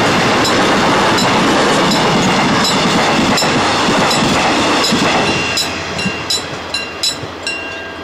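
Mugunghwa-ho passenger train's cars rolling past a level crossing: a loud, steady rumble of wheels on the rails that fades about five seconds in as the end of the train goes by. As it fades, a handful of sharp clicks of the last wheels over the rail joints follow, with a faint high ringing near the end.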